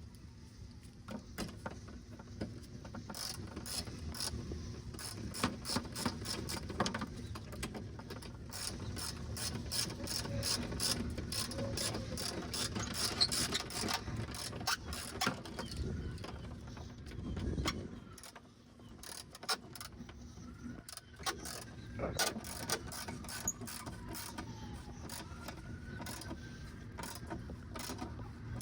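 Hand ratchet wrench clicking in quick runs as the mud guard's mounting bolts are tightened down, with short pauses between runs.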